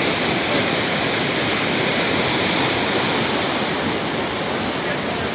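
The Bhote Koshi river in flood: a steady, loud rush of fast muddy water.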